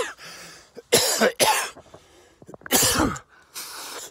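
A man coughing several times, short harsh coughs with breathing between, as he struggles for air at high elevation; he blames his asthma.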